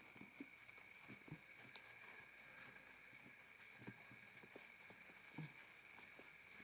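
Near silence: faint room tone with a steady high whine and a few soft, scattered taps.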